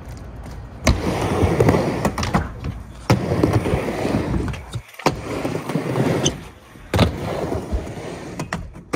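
Skateboard dropping in and riding a wooden mini ramp: the wheels rumble across the ramp surface, with a sharp clack of the board on the ramp every couple of seconds.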